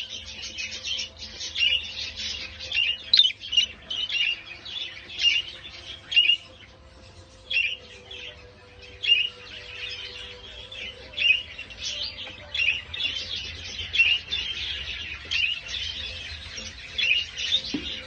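Budgerigar chirping in short, repeated calls with uneven gaps.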